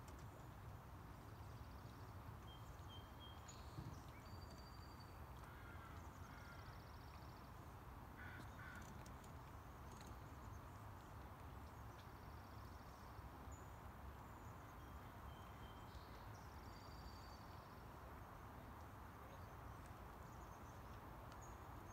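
Faint outdoor waterside ambience: a low steady rumble with distant birds calling now and then, short high whistles and a buzzy trill that comes back every few seconds.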